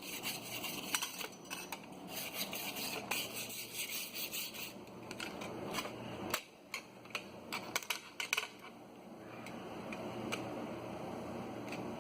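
Sharp metallic clicks and scrapes, as of metal pieces and tools being handled, over a steady hiss; from about nine seconds in a steadier rushing noise builds.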